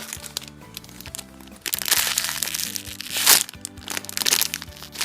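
Background music with steady held notes, and plastic packaging crinkling loudly from about two seconds in, with another brief rustle near the end.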